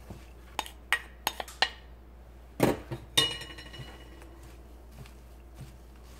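A mixing bowl clicking and clinking as a gloved hand works chopped mugwort and rice flour together. It starts with a quick run of sharp clicks, then about two and a half seconds in a heavier knock, followed by a clink that rings briefly.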